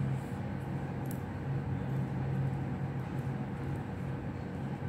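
Steady low background hum with a few faint clicks of thin metal knitting needles as a purl row of thin wool is worked.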